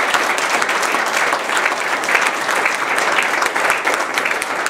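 Audience applauding: a roomful of people clapping their hands, a dense, steady patter.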